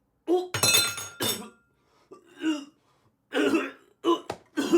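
A man choking on food: a loud, rasping coughing fit about half a second in, then a run of shorter strained coughs and gags.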